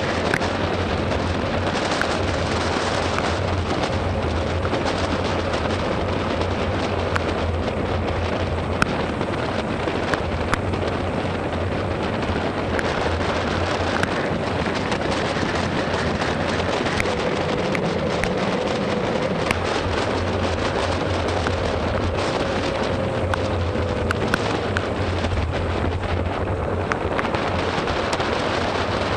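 Steady rush of wind and rain noise on the microphone of a motorcycle riding on a wet road, with a low drone underneath and scattered sharp taps from raindrops striking the microphone.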